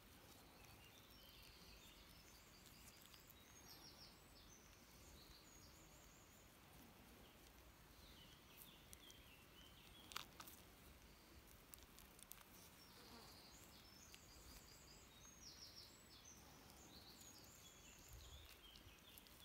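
Near silence: faint songbirds singing high, repeated chirping phrases in several spells, with a few light clicks, the sharpest about ten seconds in.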